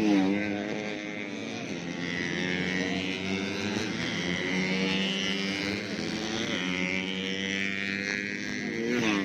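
Race-tuned 130cc four-stroke underbone motorcycle engines revving hard as the bikes pass, with the pitch sweeping up and falling away about the start and again near the end, and a steady engine drone in between.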